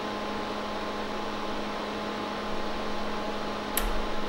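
Steady electrical hum and hiss from running bench electronics, with one sharp click near the end as a front-panel rotary switch on the counter is turned.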